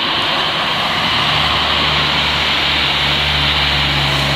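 Steady loud static hiss from an Olywiz UV6S handheld radio's speaker, with a low hum joining about a second in. It is the sound of the radio receiving a weak repeater carrier with no one speaking on it.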